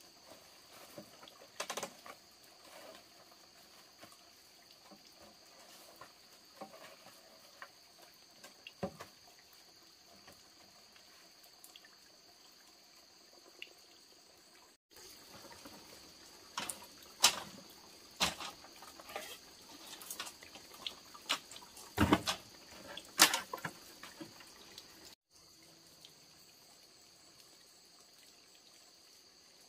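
Water splashing and trickling with scattered knocks and clicks, busiest and loudest in the middle stretch, over a steady high-pitched insect chorus.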